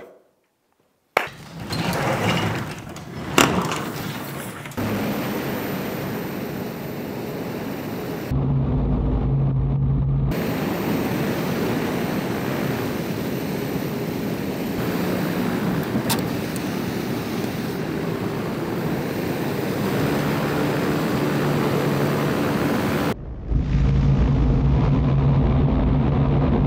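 Electric hovercraft's four brushless motors spinning 3D-printed compression propellers: a steady rushing drone of driven air with a faint hum. It changes abruptly several times, and there are a few sharp knocks in the first few seconds.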